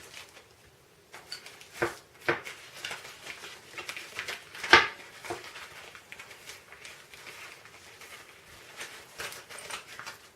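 Small parts of a fuel pump repair kit being handled on a workbench: scattered light clicks and knocks with some rustle between them. The loudest knock comes about five seconds in.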